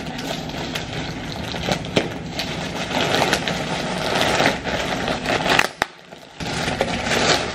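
Thin plastic mailer bag crinkling and rustling as it is cut and pulled open by hand. There is a short pause about six seconds in.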